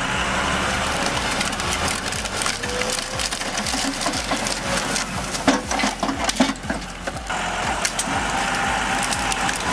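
A heavy machine's engine runs under load while wood cracks and splinters over and over, with a faint whine from the machinery that rises near the end.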